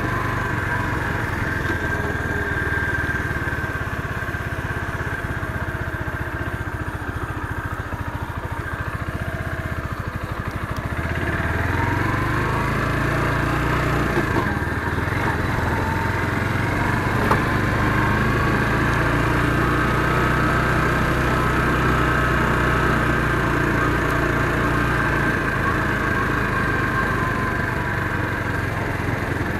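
Motorcycle engine running while riding along, with wind rush over it. The revs rise about a third of the way in, hold steady, and ease off a little near the end.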